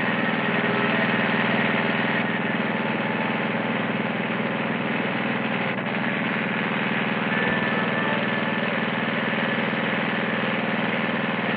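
Petrol lawn mower engine running steadily.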